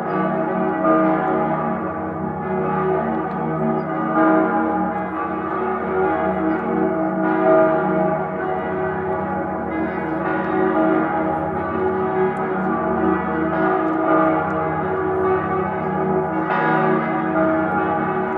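Salzburg Cathedral's bells ringing together in a full peal. Many overlapping bell tones blend into one dense, continuous sound, with a fresh strike standing out every few seconds.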